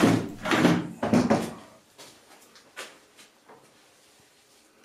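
Handling noise of a Makita cordless chainsaw and its batteries being slid and set down on a wooden workbench: knocks and a scrape, loudest in the first second and a half, then a few faint taps.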